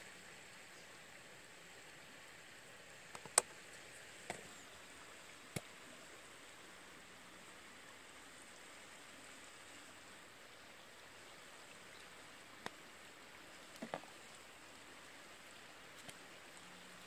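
A handful of short sharp clicks and light knocks, the loudest about three seconds in, as bottles, caps and a small sauce bowl are handled and set down on a cutting board, over a faint steady hiss.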